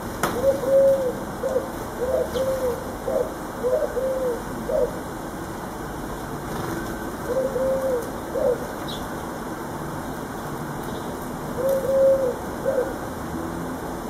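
A pigeon cooing: a run of low, soft coos over the first few seconds, then two shorter phrases separated by pauses.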